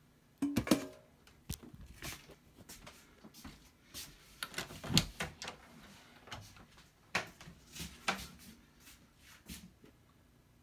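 Irregular knocks, taps and clicks of a handheld camera being carried while walking through a room, with the loudest knocks about half a second in and around five seconds in.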